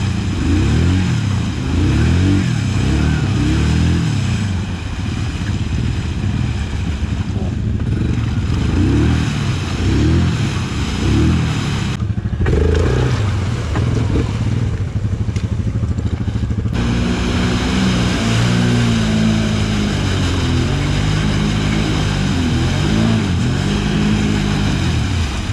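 Quad (ATV) engine revving hard again and again as it churns through deep mud, the pitch rising and falling every second or so. The sound cuts abruptly about twelve seconds in; from about seventeen seconds an engine runs more steadily, swelling slowly up and down.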